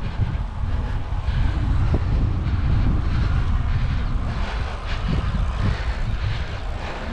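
Steady, loud rumble of a moving bike with wind buffeting the microphone.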